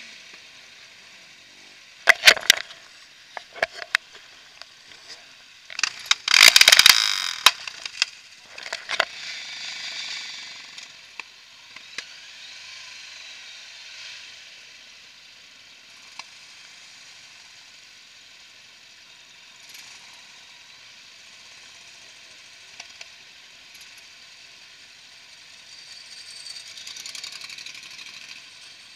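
Muffled running noise of motorcycles moving slowly in a crowded group, picked up by a camera mounted on one of the bikes, mostly a steady hiss. There are a few sharp clicks about two seconds in and a short loud burst, likely a nearby bike revving, about six seconds in.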